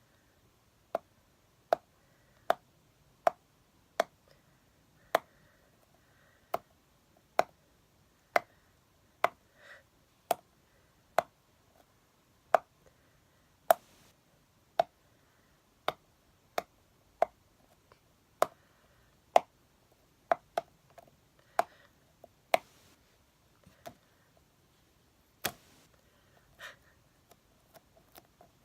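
Sharp, crisp taps on a small hard object, roughly one a second, each short with quiet in between.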